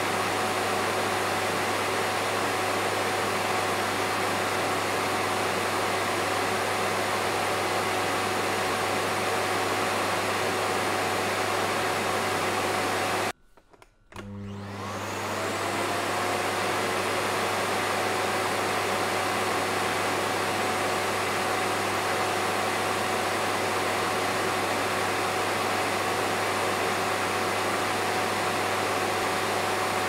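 Vacuum cleaner motor running with a steady rushing noise and a low hum. About thirteen seconds in it cuts out abruptly for under a second, then spins back up with a rising whine and settles into the same steady run.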